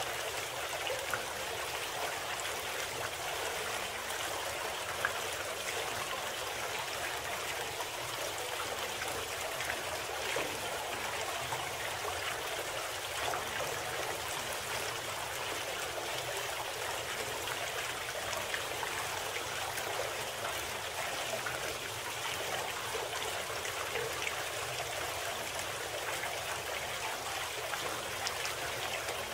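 Steady sound of running water, like a stream, the masking sound of a subliminal audio recording.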